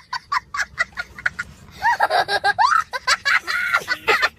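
A comedy sound effect of rapid cackling: quick short high calls, about seven a second, then from about two seconds in longer calls that swoop up and down in pitch.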